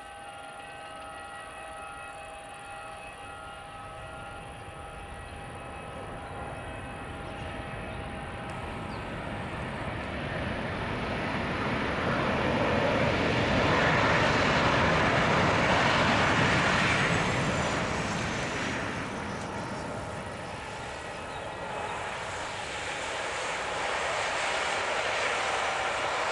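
Boeing 737-800's CFM56 turbofan engines rolling out along the runway after landing: a jet whine with steady tones gives way to a broad rush that swells to its loudest about halfway through as the airliner passes close by, eases, then rises again near the end as it taxis away.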